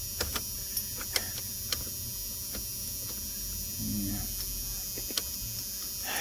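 Scattered sharp clicks from a steering column as the ignition key and switch are worked through their positions, testing the newly installed ignition switch, over a steady hum.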